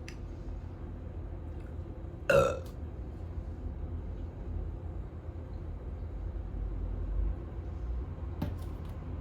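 A person burps once, a short loud belch about two seconds in, brought up by gulping carbonated zero-sugar Coca-Cola. A faint click comes near the end, over a steady low hum.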